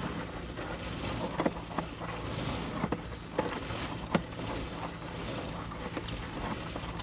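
Sewer inspection camera's push cable being fed down a PVC drain line: irregular sharp clicks and knocks over a steady low hum.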